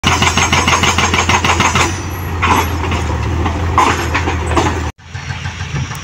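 Hydraulic breaker on a wheeled excavator hammering broken concrete, rapid even blows at about eight a second, over the machine's steady diesel engine. The hammering stops about two seconds in while the engine keeps running, and the sound cuts off suddenly near the end.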